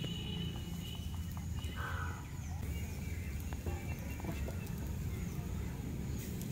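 Birds chirping in the background over a steady low rumble, with a few faint clicks.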